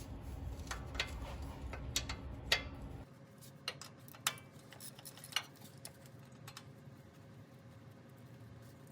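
Scattered sharp metallic clicks and clinks of a ratchet and 10mm socket working a nut off a starter's wire terminal, a few irregularly spaced ticks over a low background hum that drops about three seconds in.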